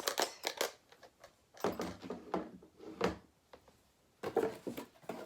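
Cardboard packaging being handled and opened, in three spells of scraping and sliding, the longest from about two to three seconds in.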